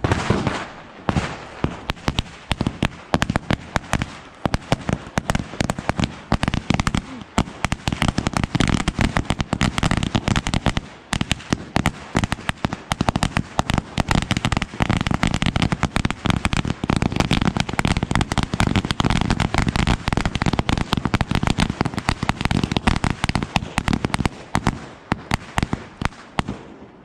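A string of firecrackers going off on the ground in a rapid, continuous run of sharp bangs, crackling many times a second.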